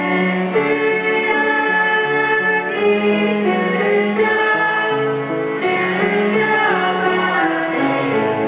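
A small group of young voices singing together, accompanied by a bowed cello.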